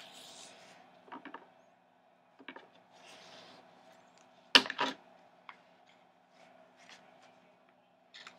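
Paper and washi tape being handled on a wooden tabletop: brief rustling and sliding of planner pages, a few light taps, and a loud double knock on the table about halfway through.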